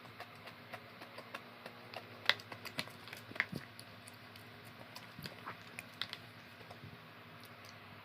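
Scattered small clicks and taps of eating, mouth sounds and utensils, over the steady hum of a noisy electric fan.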